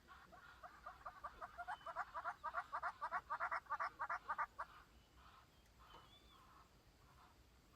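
A bird calling: a rapid series of short repeated notes that speeds up and grows louder, then breaks off about four and a half seconds in, with fainter calls before and after.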